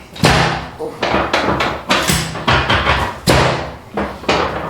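A series of about seven sharp knocks in quick succession, roughly every half second to second, each with a short ringing tail.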